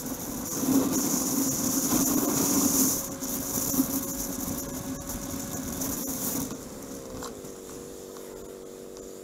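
Motorcycle engine running with wind rushing over the handlebar-mounted camera while riding, the wind loudest in the first few seconds. About seven seconds in the engine note drops and levels off into a steady lower hum as the bike slows.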